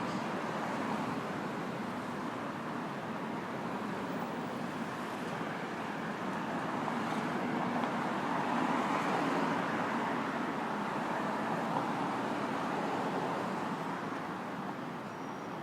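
City street traffic noise: a steady wash of passing cars and other vehicles, swelling as a vehicle goes by about halfway through and easing off near the end.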